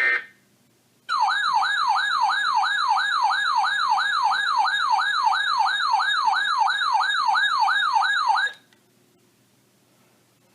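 Electronic weather-alert siren of a weather radio receiver: a rising whoop repeated about three times a second for about seven seconds, starting about a second in and cutting off abruptly. It signals an incoming severe-weather alert, here ahead of a tornado warning.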